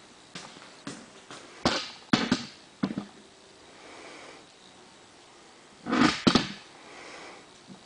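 Four meshed elliptical metal gears turning, giving irregular clicks and clacks from the meshing teeth: a run of knocks a couple of seconds in and a louder double clack about six seconds in.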